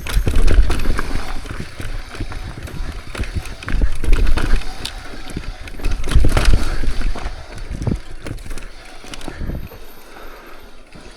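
Mountain bike rolling over a rocky trail: tyres rumbling and knocking over rock, with the bike rattling. It is loudest in surges about half a second, four and six and a half seconds in, and eases off near the end.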